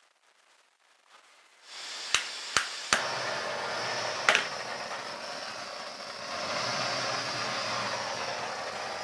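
Handheld butane torch: gas starts hissing, three sharp igniter clicks come in quick succession, then the flame burns with a steady hiss. There is another click a little later, and the hiss turns slightly louder about two-thirds of the way in.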